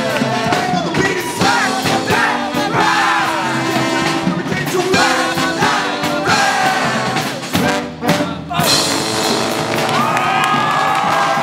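Live brass band of sousaphone, trombones, trumpet and drums playing a funk groove while a lead singer shouts and sings the lyrics into a microphone, with a crowd cheering. About eight seconds in there is a brief break, then the horns hold a long chord.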